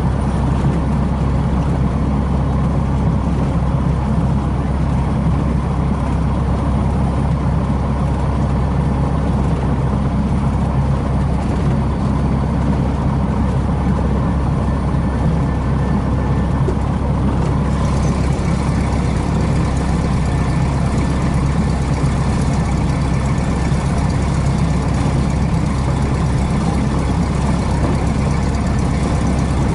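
Cessna 150H's four-cylinder air-cooled Continental O-200 engine and propeller running steadily, a constant low drone heard inside the cabin. About two-thirds of the way through, the hiss over it grows a little brighter.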